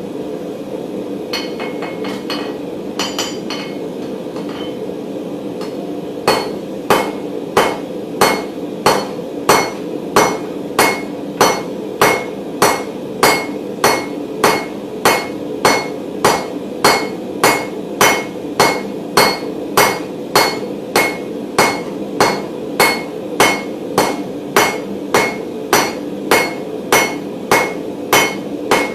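Hammer blows on hot 16 mm round mild steel bar, squaring the stock. A few light taps come first, then from about six seconds in an even rhythm of about three ringing strikes every two seconds. A steady hum runs underneath.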